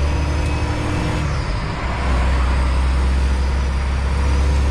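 Freightliner Classic semi truck's diesel engine droning steadily at highway cruise, heard from inside the cab along with tyre and road noise. The low drone dips briefly about a second and a half in, then comes back.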